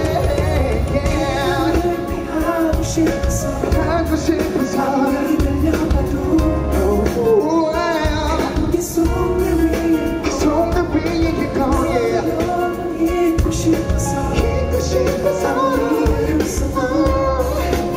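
Live pop concert: dance-pop music with a heavy bass beat and a male singer's voice over it, heard through a venue's sound system.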